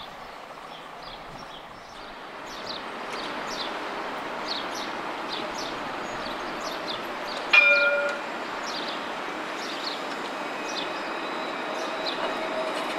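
Alstom Citadis tram moving through the terminus with a steady running noise. About halfway through its warning bell rings once, a sharp clang that dies away in half a second. Near the end a steady electric hum comes in as the tram passes close.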